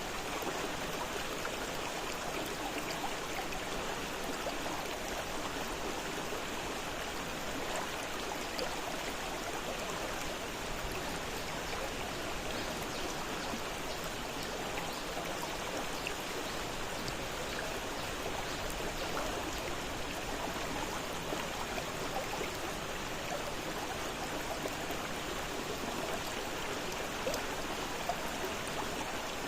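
A fast-flowing river rushing steadily over rocks, a continuous splashing and babbling with no letup.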